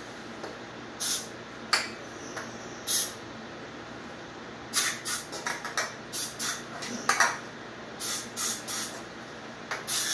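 Aerosol spray can hissing at a motorcycle engine in a dozen or more short squirts, a few spaced apart at first, then a quicker run of them.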